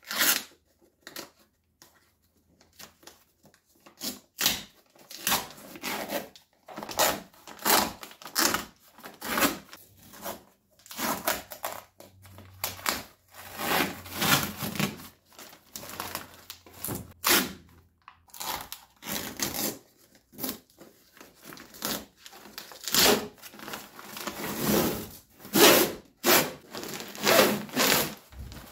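Peel ply being ripped off cured fiberglass by hand: many short tearing pulls, irregularly spaced, with crinkling of the peeled cloth in between.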